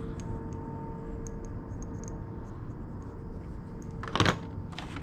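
Faint handling noise, with light ticks and one short clatter about four seconds in, over a steady low hum.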